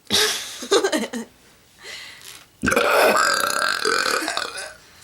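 A person belching: a short burp right at the start, then a long, drawn-out loud belch lasting about two seconds.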